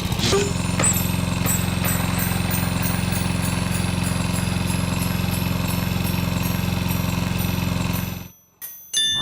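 A steady, engine-like mechanical drone with a fast even pulse, cutting off suddenly about eight seconds in, followed near the end by a short rising whoosh.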